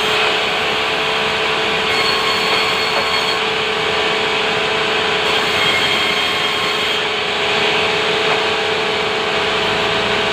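A sawmill's power saw runs steadily while cutting timber into boards: a loud, constant whirring with a steady hum beneath it.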